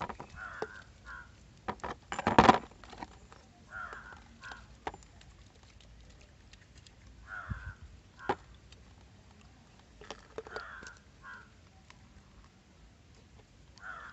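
Crows cawing, two caws at a time, the pair repeating about every three seconds. Small clicks of parts being handled run throughout, and a brief loud noise comes about two seconds in.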